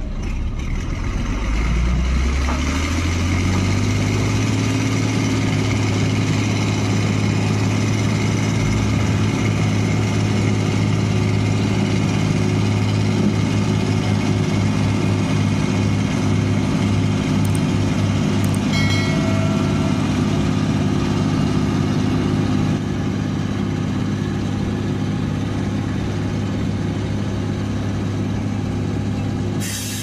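Engine of a small truck-carrying river ferry, revving up over the first few seconds and then running steady under load as the vessel pulls away from the bank.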